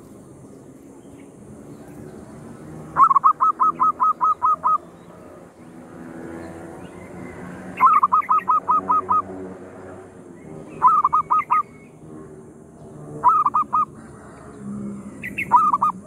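Zebra dove (perkutut) calling: five bursts of quick staccato cooing notes. The first two runs have seven or eight notes each, and the later ones three or four.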